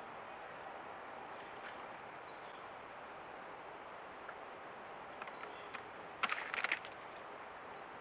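Steady rush of flowing creek water. A few faint ticks come about five seconds in, then a quick cluster of sharp clicks about six seconds in, the loudest sound present.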